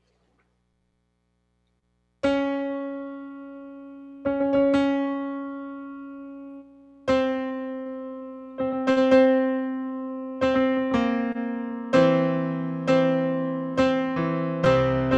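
About two seconds of near silence, then a piano begins playing slowly: notes and chords struck and left to ring and fade. The playing grows fuller and quicker, with lower bass notes joining about twelve seconds in.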